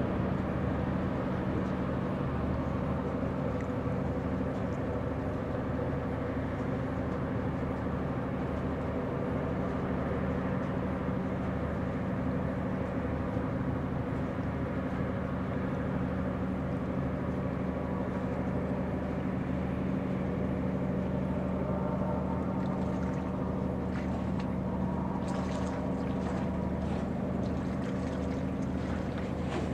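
Cargo ship's diesel engine running with a steady low drone as the vessel passes close by, with a few faint clicks near the end.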